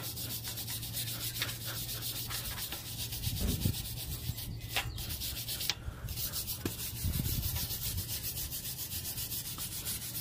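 A brass wire brush is scrubbed by hand back and forth over a Brembo brake caliper in rapid, even strokes, with a brief pause about six seconds in.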